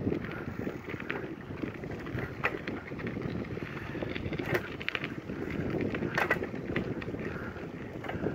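Wind buffeting the microphone in a steady low rumble, with a few short clicks or rustles scattered through it.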